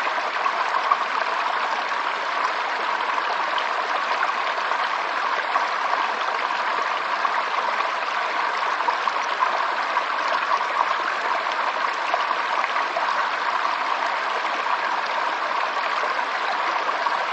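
Waterfall: a steady, unbroken rush and splash of falling water.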